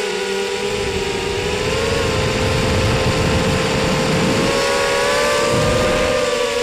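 Brushless motors and 5x4 props of a ZMR250 racing quadcopter (T-Motor 1806 2300kv) heard from the onboard camera: a steady buzzing whine over a rough low rumble, its pitch wavering slightly with the throttle.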